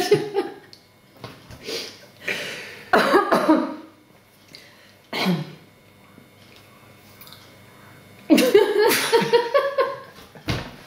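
A man and a woman stifling laughter in a few short puffs of breath, then laughing openly for about two seconds near the end.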